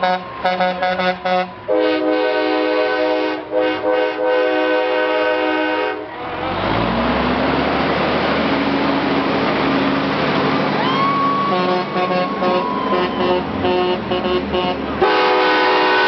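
Semi trucks blowing air horns: long blasts of several tones sounding together as a chord. In the middle the horns give way to a big diesel truck engine passing close, its pitch rising as it pulls, before the horns start again near the end.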